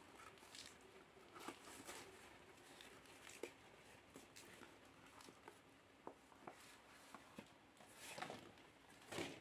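Packaging being handled by hand: faint scattered taps and clicks, with two louder rustles near the end.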